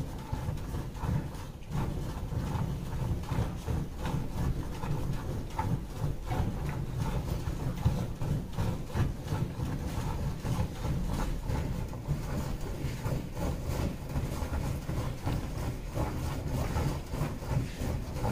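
Hand milking of a Gir cross cow: milk squirting from the teats into a steel bucket in a quick, continuous run of short squirts, over a steady low rumble.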